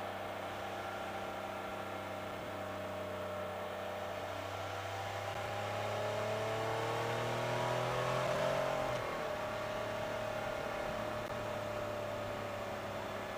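Can-Am Spyder RT's three-cylinder engine running while riding. Its pitch rises steadily for about four seconds as it accelerates, then drops suddenly about nine seconds in, as at a shift or a roll-off of the throttle, and the engine settles back to a steady note.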